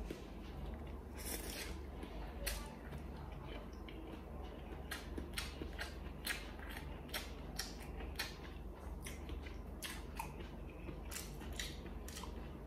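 Close-up eating sounds of a mouthful of stir-fried instant noodles: a slurp at the start, then chewing with many small, irregular wet mouth clicks.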